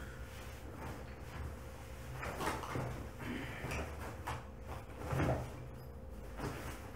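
Handling noises from clothing and a duffel bag being moved: a scattering of soft knocks and rustles, the loudest about five seconds in, over a faint steady hum.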